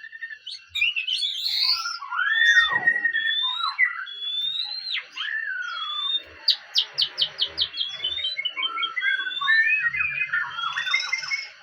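A songbird singing a varied song of whistled notes that slide up and down, with a quick run of short clipped notes about six and a half seconds in. A faint steady high tone sounds behind it.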